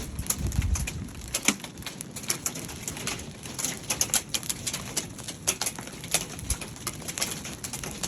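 Hail drumming on a metal roof: a dense, irregular clatter of sharp hits over a steady hiss.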